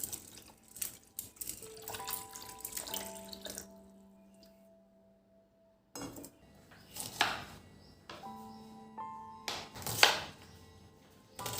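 Soft instrumental background music with held notes, pausing for a couple of seconds midway, over water splashing at a sink tap in short bursts, the loudest near the end.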